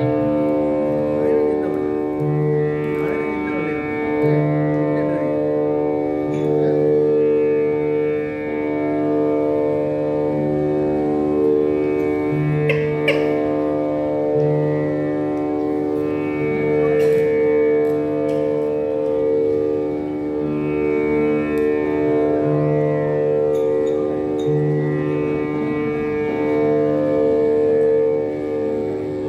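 Electronic keyboard playing a slow melody of held notes in raga Madhuvanti over a steady drone, the notes changing in clean steps.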